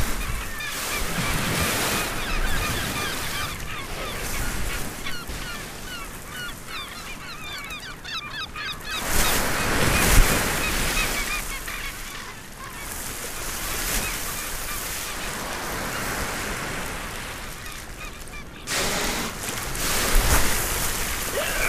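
A crowd of seabirds calling, many short cries overlapping in the first half, with water splashing as orcas thrash at the surface, loudest about ten seconds in and again near the end.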